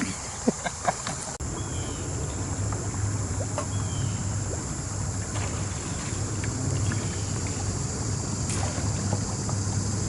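Small boat moving on the water, a steady low hum with water and wind noise, and a few faint bird chirps. A couple of sharp clicks come in the first second before the hum sets in.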